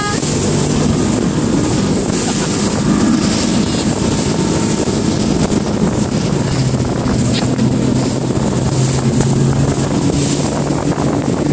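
Mercury outboard motor driving a rigid inflatable boat at speed, with the rush of the wake and heavy wind buffeting the microphone. The engine's pitch drops slightly a little past halfway.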